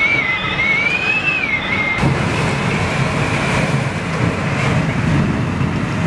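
Storm wind rushing, with a high wavering whistle for about the first two seconds, then a steadier low rumble.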